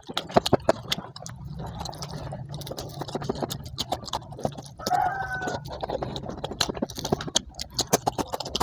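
Close-up eating sounds: a man chewing fried fish and rice eaten by hand, with wet mouth clicks and smacks throughout over a steady low hum. A brief high-pitched call sounds about five seconds in.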